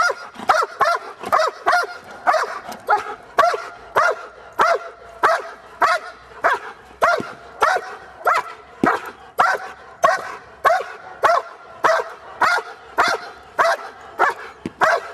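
Belgian Malinois barking hard and steadily, about two barks a second in an unbroken rhythm.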